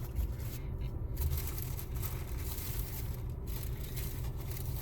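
Paper and food wrappers rustling and crinkling as the takeout bag is handled, over a steady low hum.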